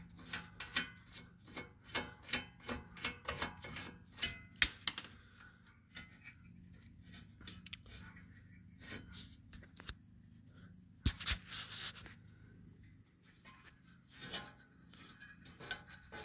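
Ratchet wrench clicking in quick, even strokes, about three a second, as the 18 mm rear brake caliper bracket bolts are backed out. A loud clunk follows about four and a half seconds in, then a pair of knocks later and a few scattered clicks near the end.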